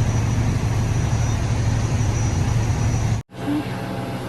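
A fire truck's engine idling, a steady low hum. It cuts off abruptly about three seconds in, and a quieter steady hum follows.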